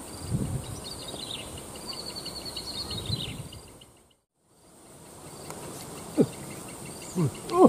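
Riverside insects chirping, with a rapid repeated high call and a descending trill from a bird. The sound fades out for about half a second near the middle, then the faint, steady insect chirping comes back. A few short, low calls sound near the end.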